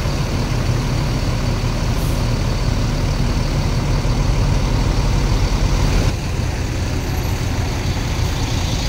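Diesel engine of a Mercedes-Benz O500RS 1836 coach running low and steady as the coach rolls slowly past at close range. It gets a little louder for a couple of seconds in the middle, then settles back.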